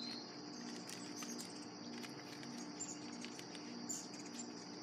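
Insects trilling steadily and high-pitched in a summer garden, with a low hum pulsing on and off under it. There are a few faint clicks as a tobacco tin is handled.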